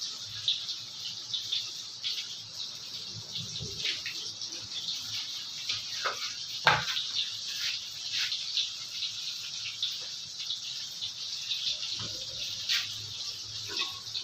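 Bananas frying in hot oil: a steady sizzle with a constant run of small crackles and a few sharper pops, the loudest about six to seven seconds in.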